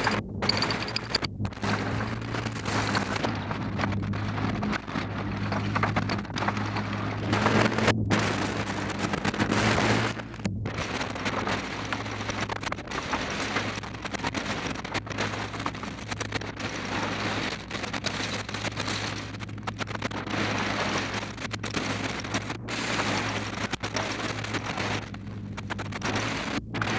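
Threshing machine running steadily, heard through a badly worn magnetic film soundtrack: a continuous crackly rush over a low hum, cut by brief dropouts about a second in, around eight and ten and a half seconds, and twice near the end.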